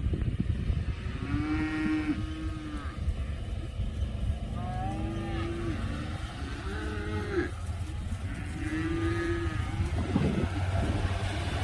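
Dairy cows mooing, four long calls one after another, over a low steady rumble. The cows are hungry and calling for their feed.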